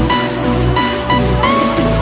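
Electronic dance background music with a steady beat and repeating synth notes.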